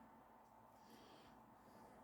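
Near silence: faint room tone with a steady low hum and a brief soft rustle about a second in.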